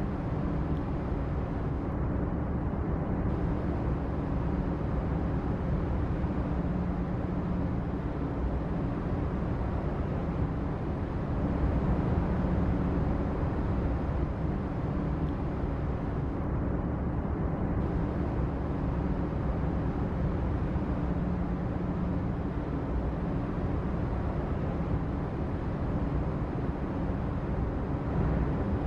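Steady low rumble of engine machinery with a faint continuous hum, heard as harbour background noise.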